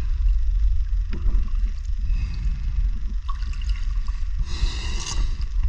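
Underwater scuba sounds: a steady low rumble of water moving over the camera, with a burst of the diver's exhaled regulator bubbles from about four and a half seconds in.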